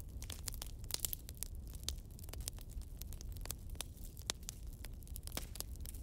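Soft crackling of a log fire played by a digital fireplace: irregular snaps and pops, several a second, over a low steady rumble.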